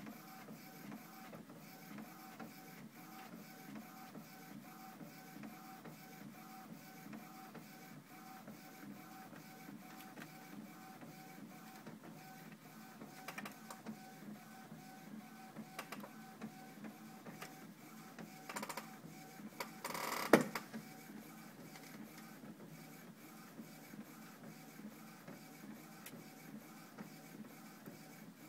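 Steady, rhythmic whirring like an inkjet printer at work, pulsing about three times a second, with a louder clatter about 20 seconds in.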